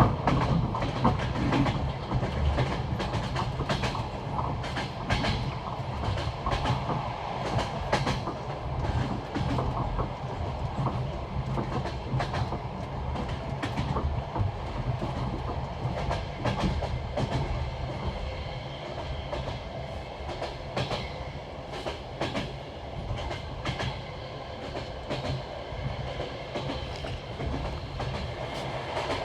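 Passenger train carriage running on jointed rail track: the wheels clicking over the rail joints in a repeated clickety-clack over a steady low rumble.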